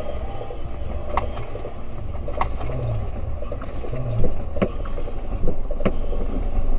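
Steady low vehicle rumble with a few sharp clicks and a couple of short low thumps.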